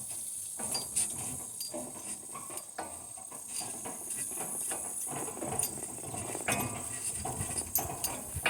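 Metal harness hardware on a donkey team clinking and jingling with irregular light clicks as the animals walk.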